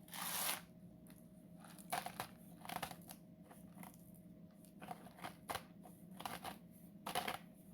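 Salt being measured out by hand: a brief hiss at the start, then scattered short clicks and crinkles of the container and measuring spoon being handled.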